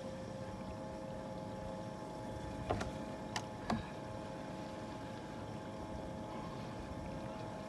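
Electric trolling motor on a bass boat running with a steady whine of several tones. A few sharp clicks come close together about three seconds in.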